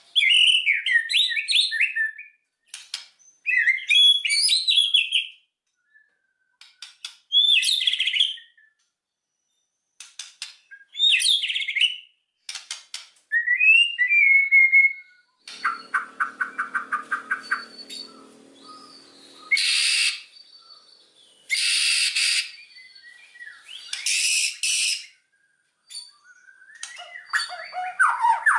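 White-rumped shama singing loud, varied phrases of fast whistled notes with short pauses between them. Around the middle comes a rapid rattling series, and later harsh rasping notes.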